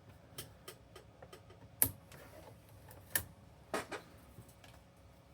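Scattered light clicks and taps of tools and plastic parts being handled at a workbench, with a few sharper knocks about two, three and four seconds in.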